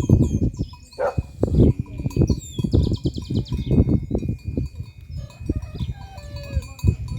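Small birds chirping, with a fast trill about three seconds in and a thin steady high note running under them. Low knocks and thumps from the livestock come close together throughout and are the loudest thing heard.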